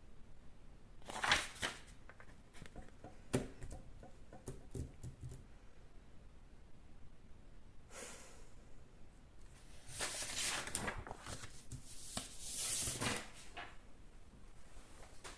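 Paper rustling and scratching from handling and drawing on sheets of paper, in several short bursts, with a few sharp clicks between them.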